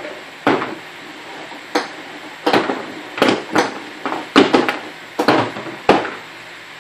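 Golf balls clacking against each other and against the wood and plastic pipe of a homemade golf ball sorter as they are fed through it: a dozen or so sharp, irregular knocks, some in quick pairs.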